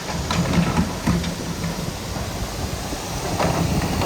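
A heavy engine rumbling steadily, with a few sharp knocks or clatters over it.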